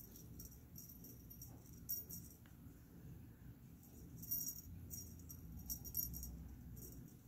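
Light metallic jingling from the metal clasp of an orange worm cat wand toy as it is waved about, coming in short irregular bursts that are strongest in the second half.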